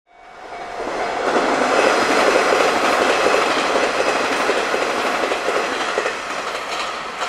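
Nishitetsu Tenjin-Ōmuta Line electric train passing close by, its wheels on the rails and its running gear making a dense rumble with a steady whine through it. The sound swells over the first second or two and then slowly eases as the train goes by.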